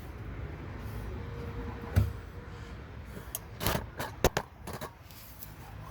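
Tools and metal parts handled while the new rear shock's lower bolt is fitted: a dull knock about two seconds in, then a quick cluster of sharp metallic clicks.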